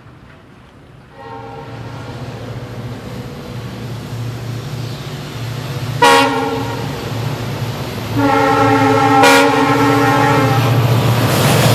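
WDP4D diesel-electric locomotive approaching under power, its 16-cylinder two-stroke engine drone growing louder, sounding its horn in long blasts: a steady one from about a second in, a sudden louder blast about six seconds in, and another long blast from about eight seconds in with a brief break near the middle. Rail and train noise rise toward the end as it nears.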